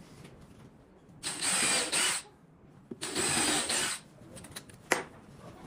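Yellow DeWalt cordless drill/driver run into plywood in two bursts of about a second each, followed by a single sharp click near the end.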